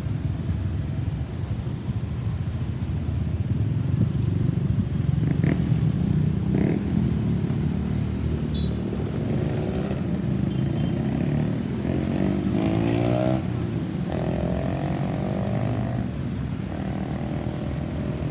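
Road traffic: the engines of passing vehicles running in a steady low rumble, with no siren sounding.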